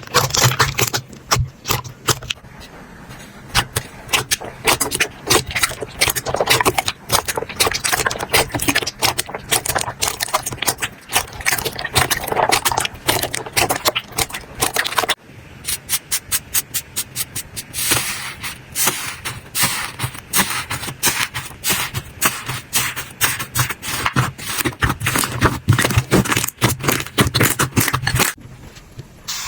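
Hands squeezing and poking slime: a fast, dense run of sticky clicks, pops and crackles, breaking off briefly about halfway through and starting again with a sharper clicking.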